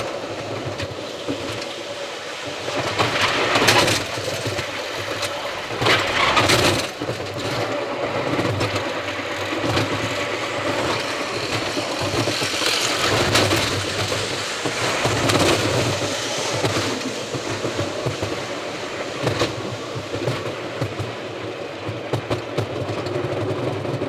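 Wild mouse roller coaster car running along its track, heard from the car: a continuous rattling rumble, with two louder surges about three and six seconds in.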